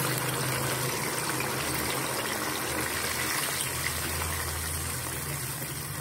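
Pressure-cooked beef in its masala frying in hot oil in a karahi, sizzling with a steady hiss that eases slightly over the seconds.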